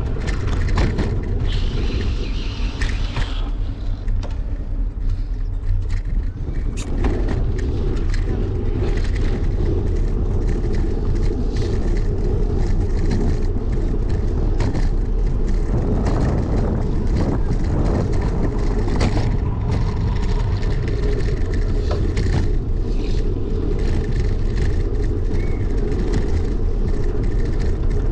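Steady city street traffic and road noise with a low rumble, picked up from a moving bicycle, with a few short knocks along the way.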